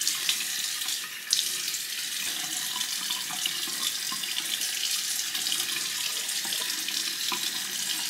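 Bathroom sink faucet running in a steady stream, water splashing as hands wet hair under it.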